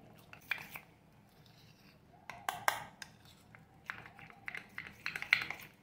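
Metal spoon scraping and clinking against a small steel bowl while stirring a thick paste, in irregular strokes.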